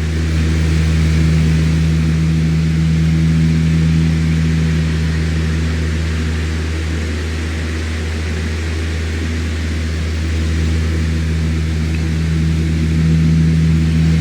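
Electric fan running steadily: a low motor hum with an even rush of air over it, swelling slightly in level now and then.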